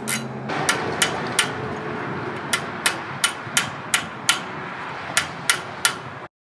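Hammer striking a punch set against a notched spindle nut, tapping it round on its threads in place of a spanner wrench. About a dozen sharp metallic strikes come in short runs of roughly three a second.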